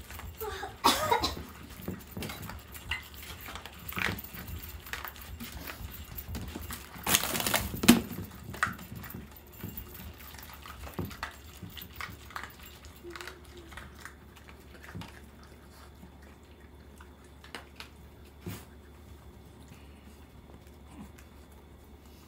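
Two dogs, a miniature schnauzer and an American cocker spaniel, eating from their food bowls: scattered clicks and clatters of food and bowls, with a louder clattering burst about a third of the way in, then sparser clicks as they finish.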